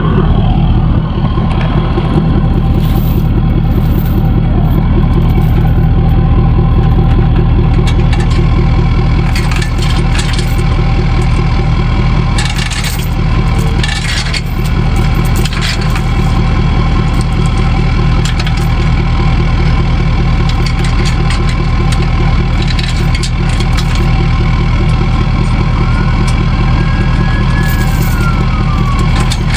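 6.7 L diesel engine of a Ford F-550 tow truck running steadily with a regular low rumble. A few clicks and knocks come around the middle, and a faint tone rises and falls near the end.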